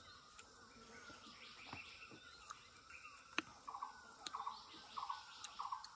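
Faint bird calls: a run of short, rapid call notes repeated two or three times a second from about the middle on, with a few sharp clicks in between.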